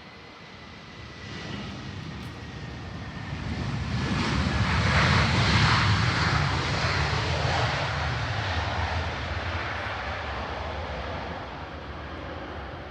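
Airliner's jet engines passing by: the rushing sound swells to a peak about five seconds in, then fades away.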